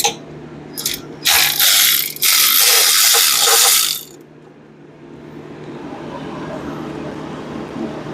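Two bursts of rapid ratchet clicking, one short and one nearly two seconds long, from a hand ratchet mechanism. After them a low hum slowly grows louder.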